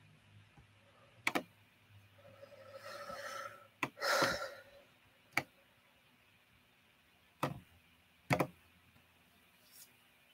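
Five sharp, isolated clicks a second or two apart, with a man's breathy exhalations around three and four seconds in.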